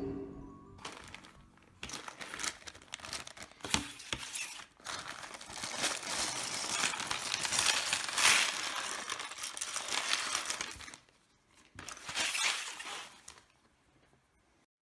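LEGO plastic pieces clattering and crinkling as they are handled or poured out, in a long spell of dense clicks and a shorter one near the end.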